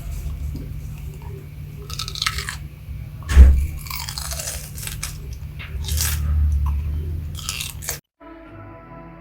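Close-up crunching and chewing-like noises over a low rumble, with one sharp loud thump about three and a half seconds in. Near the end it cuts to quiet music.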